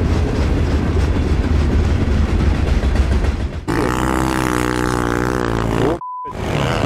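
Dirt bike engine at speed, recorded on a helmet camera: for the first few seconds mostly a heavy wind rumble with the engine beneath it, then from about four seconds in a clear, steady engine note held at high revs. A short electronic beep cuts in briefly near the end.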